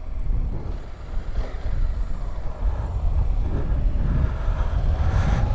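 Honda NC 750X motorcycle being ridden along a city street, its parallel-twin engine running with a steady low rumble, heard from a camera mounted on the bike; the noise gets louder about five seconds in.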